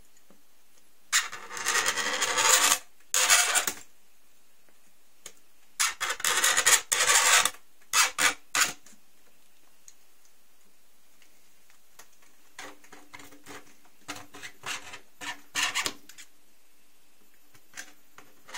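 A hand-held cutter scoring a clear plastic sheet along a straight edge, in repeated rasping strokes of one to two seconds each. The strokes turn softer after a pause about halfway through.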